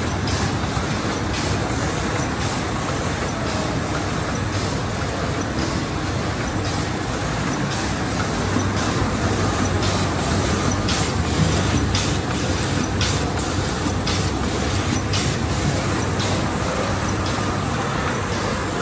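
A 1987 MAN Roland 802 sheet-fed offset printing press running: a steady mechanical din with a regular ticking through it.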